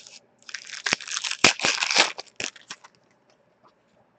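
Glossy trading cards handled and shuffled by hand: a rustling, scraping run of cards sliding against each other with a few light clicks, stopping about three seconds in.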